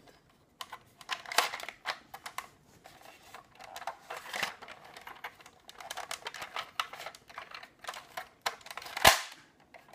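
Hard plastic Ninja Turtles helicopter toy being turned over in the hands: an irregular run of small plastic clicks and rattles, with one sharper knock near the end.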